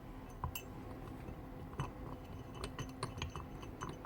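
Small steel parts clicking and clinking as a steel washer and gear are fitted onto a shaft in a mixing drill's gearbox during reassembly. The taps come irregularly, more of them in the second half.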